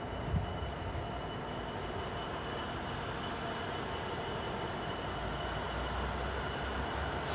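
Freightliner Class 66 diesel locomotive approaching slowly at the head of a container train: a steady low engine rumble that grows slightly louder as it nears, with a brief knock about half a second in.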